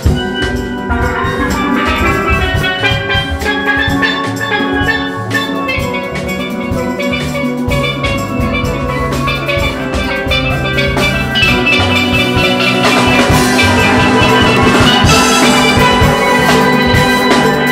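Steel band playing live: steel pans ringing out a fast melody and chords over a drum kit beat. The music grows louder and fuller about two-thirds of the way through.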